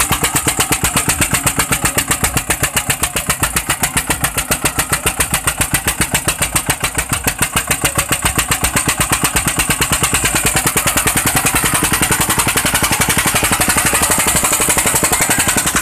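Eicher 241 tractor's single-cylinder diesel engine working at full load hauling a loaded trolley, a loud, even beat of about seven exhaust pulses a second.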